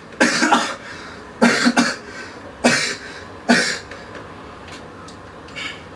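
A person coughing: four coughs in about four seconds, the second a quick run of two or three.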